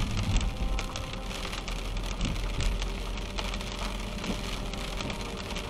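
Rain on a moving car with tyres on a wet road, heard from inside: a steady wash of noise flecked with small drop ticks over a low road rumble.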